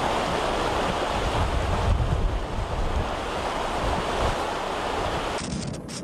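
Storm wind and surf: a dense rush of wind and breaking water, with gusts buffeting the microphone in low rumbles. Near the end it changes suddenly to a quieter hiss.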